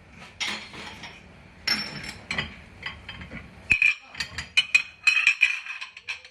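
Dishes and kitchenware clinking and clattering as they are handled and put away, an irregular run of sharp clinks that grows busier in the second half, over a low hum that drops out partway through.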